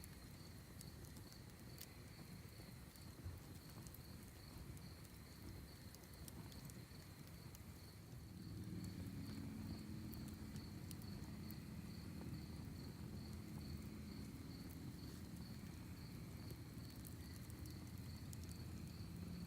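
Crickets chirping in a fast, even trill, with the scattered crackle and pops of a wood fire. A low rumble comes up about eight seconds in and stays.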